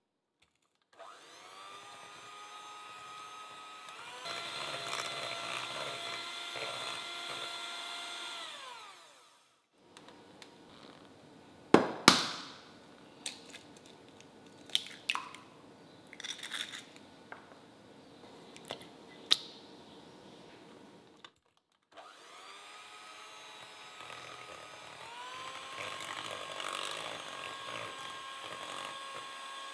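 Electric hand mixer beating a butter batter in a glass bowl, its whine stepping up in speed and then winding down. Then a run of sharp clicks and knocks as eggs are cracked against a glass bowl, the loudest about twelve seconds in. Then the mixer starts again and speeds up.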